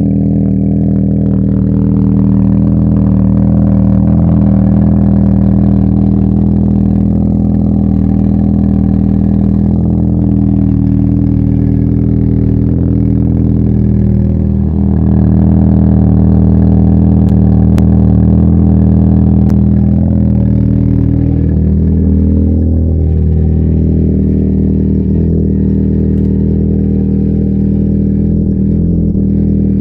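Naturally aspirated Audi A3 engine running steadily at idle through a 3.5-inch JK sport muffler, a loud low exhaust rumble.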